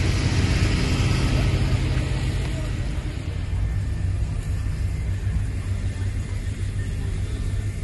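A steady low engine rumble under the hiss of water spraying from fire hoses onto a burning building. The hiss is loudest for the first three seconds, then eases.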